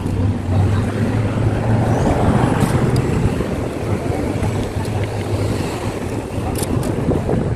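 Wind rushing over the microphone of a moving camera while riding along a road, over a low steady rumble that fades about six seconds in.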